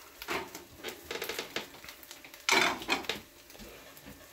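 Cooking utensil scraping and knocking against a pan as food is stirred and tossed, with a louder, longer scrape about two and a half seconds in.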